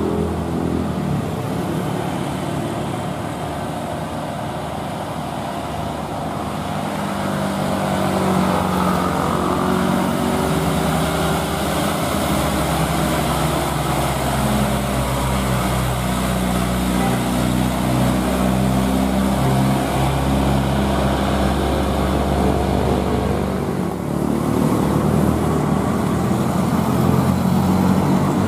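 Diesel engines of loaded Hino dump trucks labouring up a hill as they drive past, a steady engine note that grows louder about eight seconds in, with a brief break near the end as the next truck comes by.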